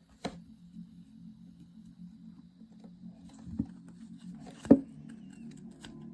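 Handling noise from a small Bluetooth speaker between songs: a few sharp clicks and knocks, the loudest about three-quarters of the way through, over a low steady hum.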